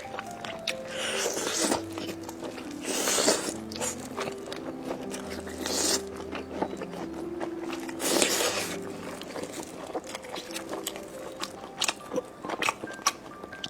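Close-up eating sounds: crisp bites into fried skewered food and chewing, with several loud crunches and many small clicks. Soft background music with a simple melody runs underneath.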